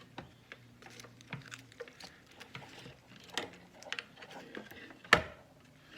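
Scattered small clicks and rustling from hands handling wiring and a plastic control panel, with one sharp knock about five seconds in.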